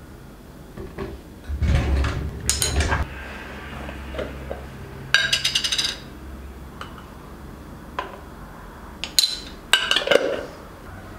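Kitchen things being handled: clinks and knocks of dishes, glass and utensils set down and moved. Near the middle comes a quick rattling run of clinks, and a low hum sits under the first half.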